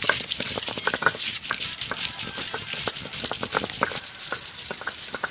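Hand-held stone crushing and grinding garlic and spices on a grooved stone grinding slab (sil-batta): a dense, irregular run of scraping clicks and crunches as stone rubs and knocks on stone.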